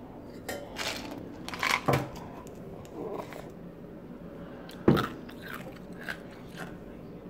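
Kitchen handling sounds as tea is strained from a saucepan through a mesh strainer into a ceramic mug: short rustles and clinks, then one sharp knock about five seconds in as the mug is set down on the counter.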